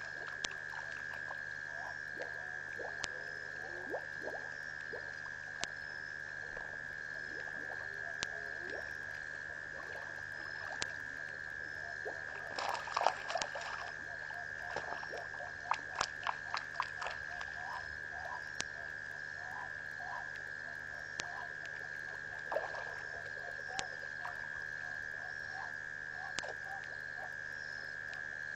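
Frogs calling at a waterhole at night, short croaks and trills over a steady high-pitched drone. Midway through comes a denser run of quick clicks and splashy sounds, the loudest part.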